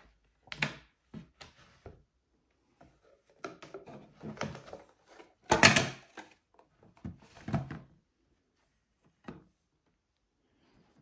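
Handling knocks and scrapes as the clock case is taken apart: rubber bands pulled off and the aluminium-framed plexiglass front panel slid out and set down on the table. A series of separate knocks, the loudest a little past halfway.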